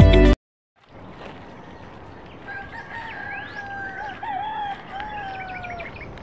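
A rooster crowing: one long drawn-out crow of about three seconds, wavering in pitch, over open-air ambience with a few small bird chirps.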